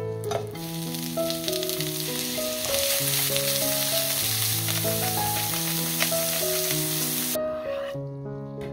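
Julienned carrots sizzling as they are stir-fried with salt in a frying pan. The sizzle grows louder about three seconds in and cuts off near the end, with background music under it.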